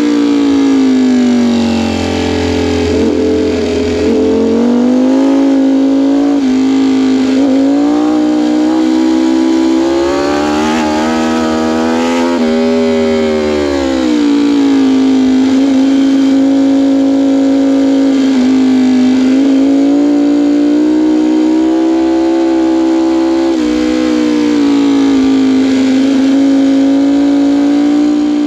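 Sportbike engine running hard at high revs. Its pitch dips and climbs several times in the first half as the throttle and gears change, then holds fairly steady with small wobbles.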